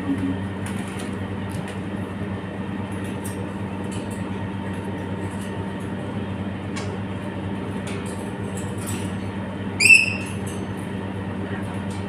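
Steady low electrical hum with a faint hiss, a few faint ticks scattered through it. About ten seconds in, a parrot gives one short, sharp squawk, the loudest sound here.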